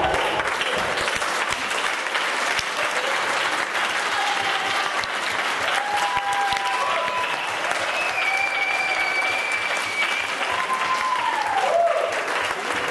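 Small audience clapping steadily, with a few voices calling out over the applause.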